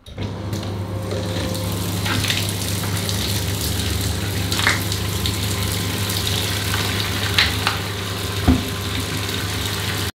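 Hot water running from the bath tap into a bathtub: a steady rush of water with a low hum under it, starting suddenly, with a few light knocks over it.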